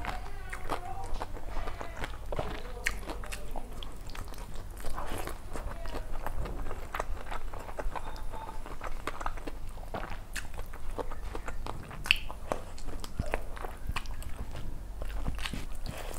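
Close-up eating sounds: a person chewing mouthfuls of pulao and chicken curry eaten by hand, with many short clicks from the mouth and fingers working rice on a steel plate.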